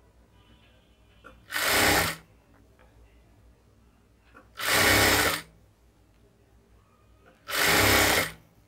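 Jack industrial lockstitch sewing machine stitching a sleeve seam in three short runs, each under a second, with near-quiet pauses between them.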